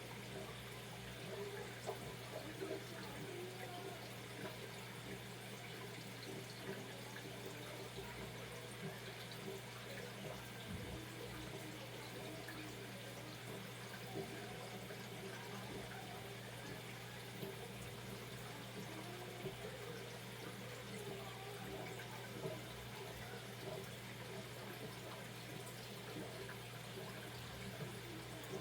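Aquarium water trickling and bubbling steadily, with a constant low hum underneath and a few small clicks.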